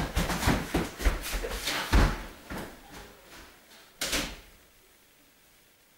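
Knocking and rustling, then a door slammed shut, with a loud bang about two seconds in and another sharp knock about four seconds in.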